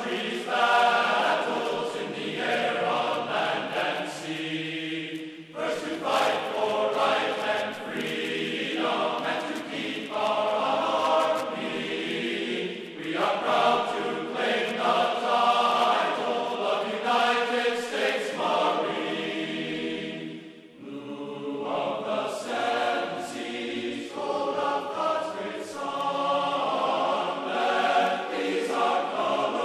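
Background music of chanting voices, held notes sung in phrases a few seconds long with brief breaks between them.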